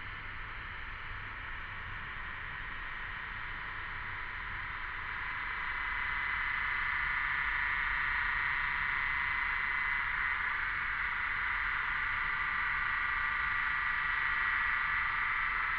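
Cicadas buzzing in a steady, dense chorus that swells louder about five seconds in and then holds.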